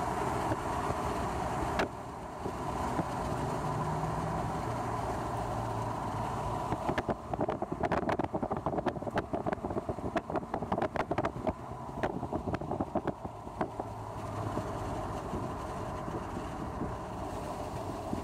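Moving car heard from inside the cabin: steady engine and road noise. From about a third of the way in until about three quarters through there is a run of rapid knocks and rattles, then it settles back to steady road noise.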